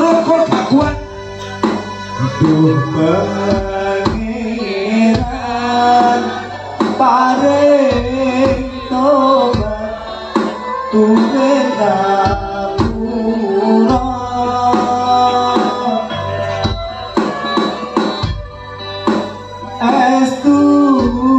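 Live Javanese devotional music played through a PA: metal gamelan-style percussion and hand drums keep a steady beat under a singing voice.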